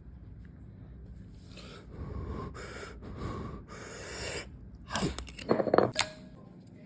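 Food-preparation sounds: four short hissing bursts one after another, then a few sharp clinks of utensils against a dish about five seconds in.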